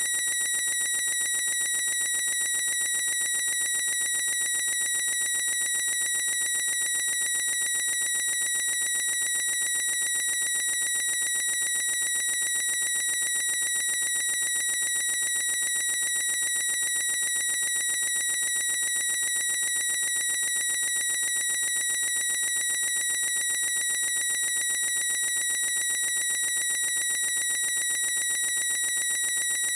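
A boy's high-pitched squeak, held at one unchanging pitch with no break, bright with overtones.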